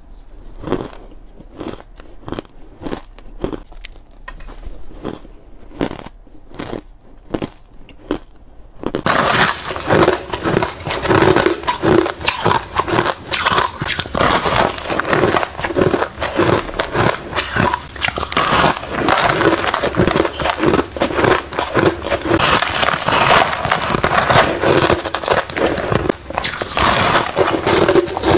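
Ice being bitten and chewed close to the microphone: separate crisp crunches of spoonfuls of shaved ice, then, from about nine seconds in, louder, dense crunching of large chunks of frosty ice.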